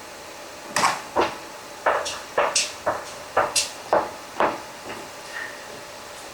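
A quick run of about ten sharp clicks and knocks, irregularly spaced over a few seconds, with a couple of fainter ones after, over a faint steady hum.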